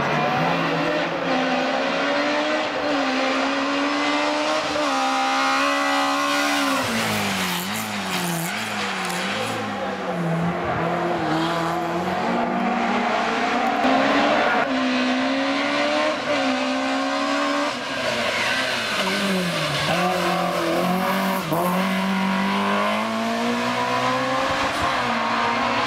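Opel Schneider Corsa 16V hillclimb car's 16-valve four-cylinder engine at racing revs, its pitch climbing through the gears and dropping at each shift. About a third of the way through the pitch falls and rises quickly several times as the car slows and downshifts, then the engine pulls hard again.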